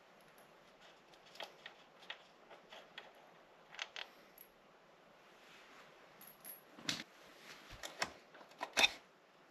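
Metal hand tools and parts clicking and clinking as they are handled during mechanical disassembly, scattered light clicks at first, then louder knocks about seven and nine seconds in.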